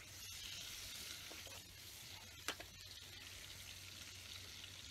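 Faint, steady sizzling over a campfire, with one sharp crack about two and a half seconds in.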